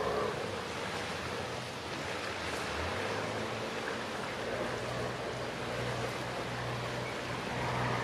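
Wind rushing steadily, with the low, even hum of a hire cruiser's engine coming in about three seconds in as the boat motors slowly past, and water washing along its hull.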